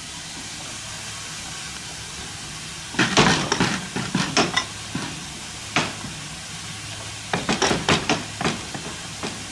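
Metallic clanking and rattling of railway level-crossing gates and their locking gear, in two quick bursts about three seconds in and again about seven seconds in, with a single clank between. A low steady hum runs underneath.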